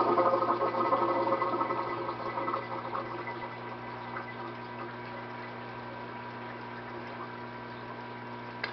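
Aquarium water splashing and trickling into the sump, dying down over the first three or four seconds as the tank drains down with its return pump off. What is left is the steady hum of the pumps still running and the low splash of the algae scrubber's drain.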